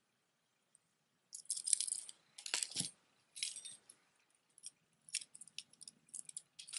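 Metal costume jewelry chains and pendants jangling and clinking as pieces are handled and moved. There is a jingle of about a second, a heavier clunk about two and a half seconds in, then scattered small clicks.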